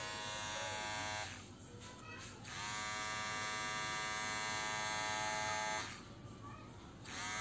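Kemei KM-1419 cordless mini hair clipper running with a steady electric buzz. It is switched off about a second in, on again for about three seconds, off, and on once more near the end.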